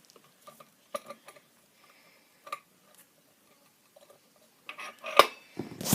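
Phillips screwdriver backing out a small metal screw, with scattered faint clicks and ticks about a second apart and one sharper click a little after five seconds in.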